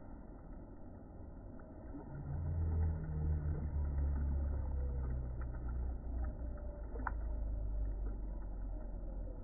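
Low engine rumble of a passing vehicle, swelling about two seconds in, holding for several seconds and fading near the end, over a faint steady hiss. A brief faint tick sounds about seven seconds in.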